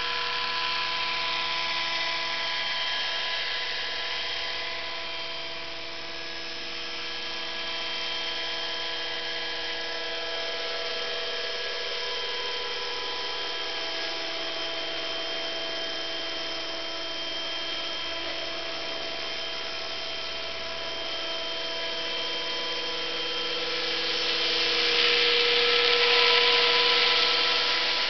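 Radio-controlled model helicopter in flight: a steady whine from its motor and rotors, with many pitches held together, swelling louder for a few seconds near the end as it comes closer.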